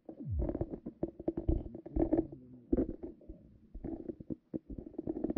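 Underwater gurgling under the ice: irregular low bubbling and burbling, broken by quick knocks and clicks, with a short falling sweep just after the start.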